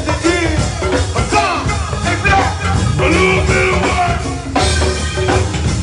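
Live go-go band playing: a steady drum groove with a voice singing over it.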